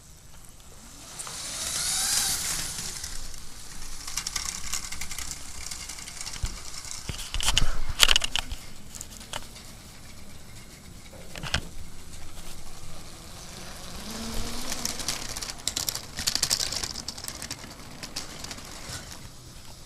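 Lego toy train running on plastic track, its motor and wheels swelling in a whirring hiss twice as it passes close, with several sharp clacks in between.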